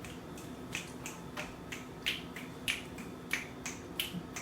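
Fingers snapping in a steady rhythm, about three sharp snaps a second.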